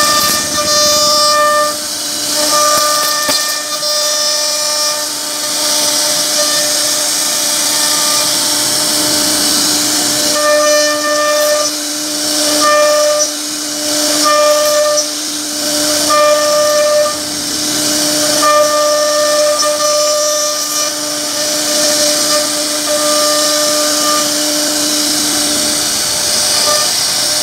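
CNC router spindle carving a relief pattern into wood: a high, steady whine over the hiss of cutting. The whine breaks off and comes back every second or two as the bit works through the cut.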